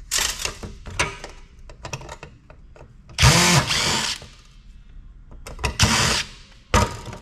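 Cordless power drill running in short bursts as it backs screws out of a floppy drive's metal casing: one longer run about three seconds in, then two brief ones near the end. Between the runs come small clicks of metal parts being handled.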